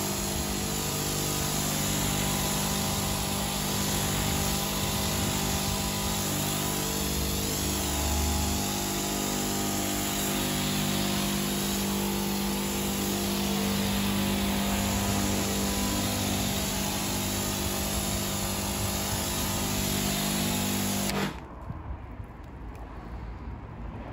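AVA of Norway P80 electric pressure washer running with a steady motor hum, fed from a water butt, its lance jet hissing on a car's bodywork as it rinses off snow foam. Motor and spray cut off suddenly near the end.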